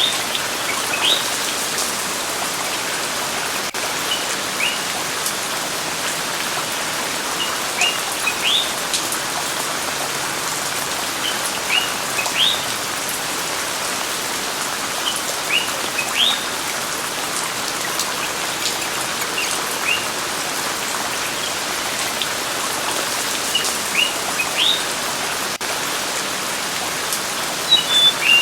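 Steady rain hiss with short rising bird chirps, a small cluster of them every four seconds or so.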